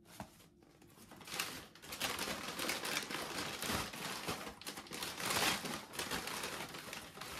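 Torn pieces of corrugated cardboard being pushed and crammed into a brown paper carrier bag: a continuous rustle and crackle of paper and cardboard, starting about a second in.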